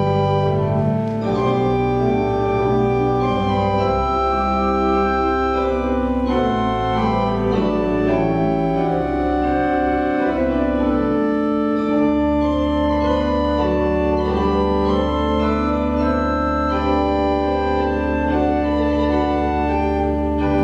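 Church organ playing the postlude that closes the service: slow sustained chords, with a deep bass note held through the second half.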